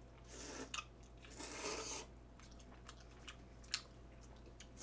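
Jjamppong noodles being slurped up in two hissy pulls, the second longer, followed by chewing, with a few sharp light clicks.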